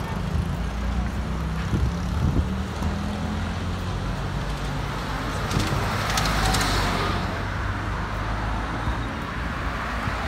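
City street traffic: cars and other motor vehicles driving along the road, under a steady low engine hum, with one vehicle passing close and loudest about six to seven seconds in.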